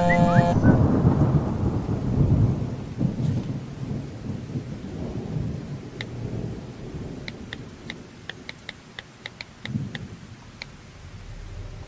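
Low rumbling thunder with rain, loudest at the start and fading over the first few seconds. Later comes a quick run of about a dozen ticks from a smartphone's on-screen keyboard as a text message is typed.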